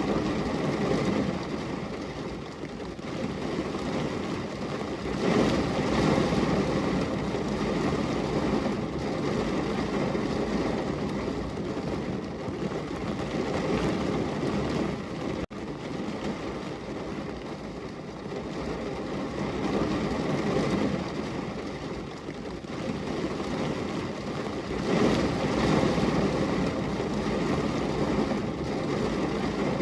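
Heavy rain pouring steadily against a window, a dense hiss with a low rumble that swells louder now and then. About halfway through there is a momentary break in the sound.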